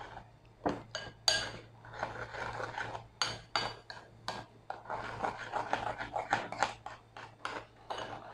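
Metal spoon stirring thick batter in a ceramic bowl, scraping and clinking irregularly against the bowl, the clinks coming faster in the second half.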